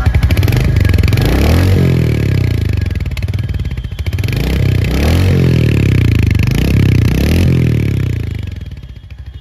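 Royal Enfield Hunter 350's single-cylinder engine heard at the silencer, idling with a steady thump and revved several times, each rise in pitch falling back to idle. The sound grows quieter near the end.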